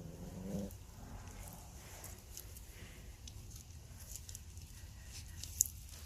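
A dog's growl trailing off in the first moment, then faint light pattering and clicks of dogs' paws moving about, with one sharp click about five and a half seconds in.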